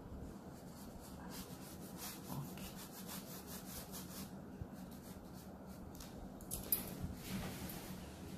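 Light blue oil pastel rubbed back and forth across drawing paper, a faint run of short rubbing strokes, several a second, easing off after a few seconds, with a sharper tick near the end.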